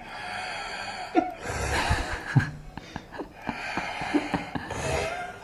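A person snoring: long, rattling breaths, about two full snores.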